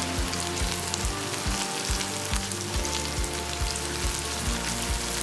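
Sliced onions, bell peppers and carrots sizzling in hot oil in a nonstick wok as they are stir-fried, with background music with a steady beat underneath.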